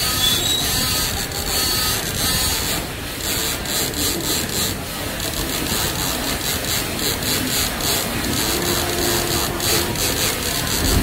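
Automated gantry dispenser laying down PUR hot-melt glue dots: a steady mechanical running sound from the moving dispensing head, with many quick ticks.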